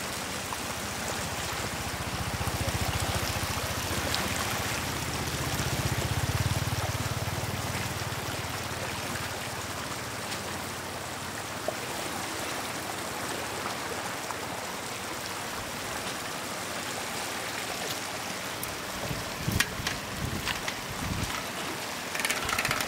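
Shallow floodwater running fast over a road, a steady rushing and trickling, with a low rumble swelling and fading in the first several seconds. Near the end, a wicker basket is plunged and scooped through the current, making a few sharp splashes.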